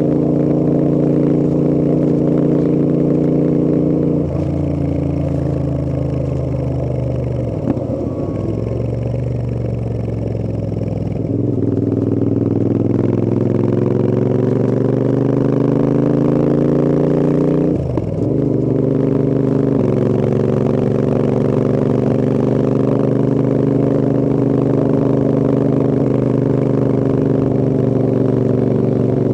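Royal Enfield Interceptor 650's 648 cc parallel-twin engine and exhaust under way: holding steady revs, easing off about four seconds in, then pulling up through the revs with a brief sharp drop, like a gear change, past the middle, and running steadily again after.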